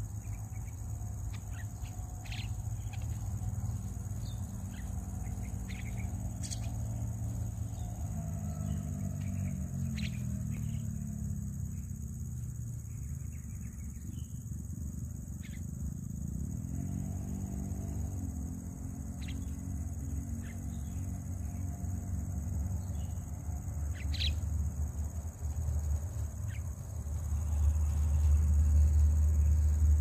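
Steady high-pitched insect chirring with short bird chirps scattered throughout, over a low hum whose pitch rises and falls around the middle. A low rumble swells near the end.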